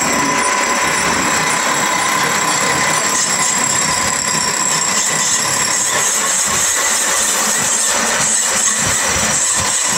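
Metal-turning lathes running in a small machine shop that makes sewing-machine motor shells: a continuous, even mechanical noise with steady high whining tones.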